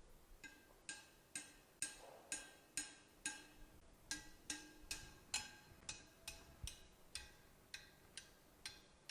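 A quick series of light metallic ticks, about two a second, each ringing briefly.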